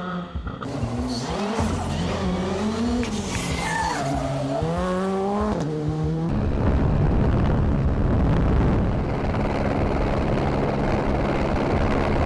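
Rally car engine revving hard, its pitch climbing and dropping again and again with the gear changes as the car comes at speed. About six seconds in this gives way to a dense, steady rushing noise with a low hum under it.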